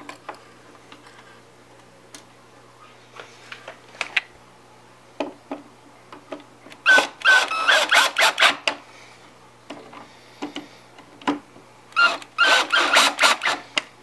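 Cordless drill/driver driving small screws into the metal RCA-cable plate of a Technics 1200 turntable. It runs twice, about two seconds each time, around seven and twelve seconds in, each run full of rapid clicks. Lighter clicks come before them as the screws are handled.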